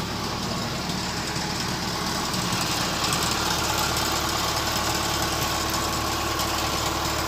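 Diesel engine of a crawler tiller converted from a Kubota DC95 combine harvester, idling steadily.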